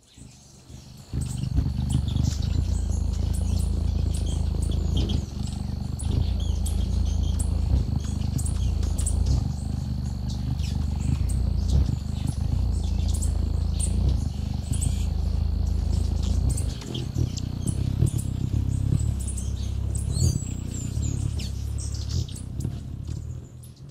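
Hummingbirds hovering at a feeder right on top of the microphone: the loud, wavering low hum of their wings, starting about a second in, with many short high chips and twitters over it. A steady high tone runs underneath and stops about three-quarters of the way through.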